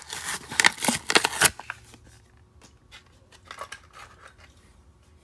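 Hot Wheels blister card being opened by hand: stiff plastic and cardboard crackling and tearing, loudest in the first second and a half, then a few lighter clicks and rustles as the car is handled.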